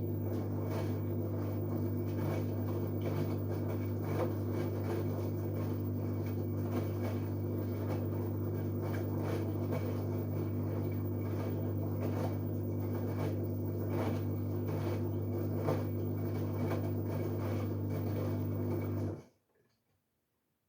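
LG Direct Drive 8.5 kg washing machine running mid-cycle: a steady low hum with many small irregular knocks over it, which cuts off suddenly near the end.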